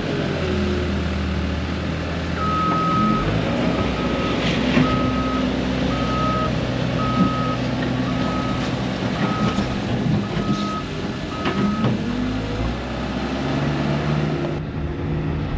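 Skid steer's backup alarm beeping about twice a second for roughly ten seconds as the machine reverses, over its running engine.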